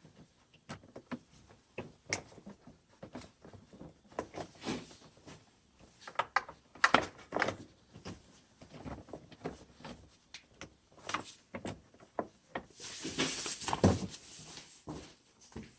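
Scattered light clicks and taps of hands and small tools working the wiring, as electrical connectors and terminals are fitted back onto a winch relay. A brief rustling noise about 13 seconds in.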